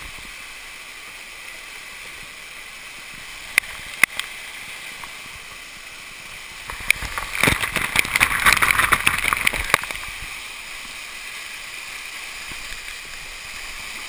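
Waterfall cascading over rocks close to the microphone, a steady rushing hiss. Two sharp knocks come just before four seconds in. From about seven to ten seconds the sound gets louder and crackly as spray and splashing water hit the waterproof camera directly.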